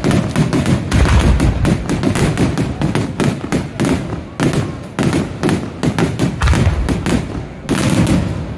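Barrage of aerial firework shells bursting in quick succession: a rapid, continuous string of bangs and deep thuds, several every second.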